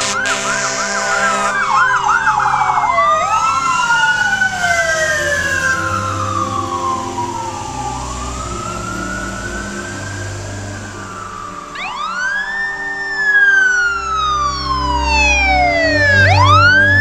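Fire apparatus sirens responding. A fast yelp is cut off about a second and a half in, then a slow wail rises and falls every four seconds or so, louder toward the end, over a low engine rumble.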